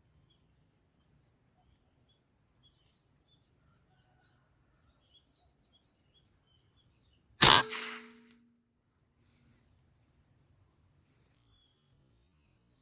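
A steady high-pitched drone of insects, broken about seven seconds in by a single sharp, loud shot from an air rifle that dies away within half a second.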